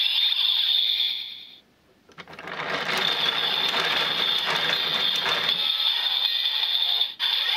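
DX Build Driver toy belt with Phoenix and Robot Full Bottles inserted: its electronic standby jingle ends, and after a short pause its lever is cranked with a fast ratcheting, clicking rattle over a steady high electronic tone from the belt's speaker.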